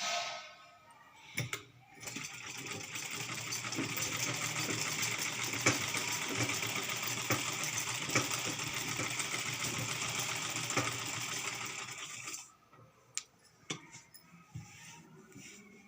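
Sewing machine stitching fabric in one steady run of about ten seconds, starting a couple of seconds in and stopping near the end, followed by a few light clicks.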